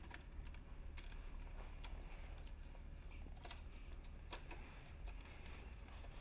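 Sparse, irregular light clicks and handling noises as 35mm film and MovieCam camera parts are handled while the film is laced, over a steady low hum.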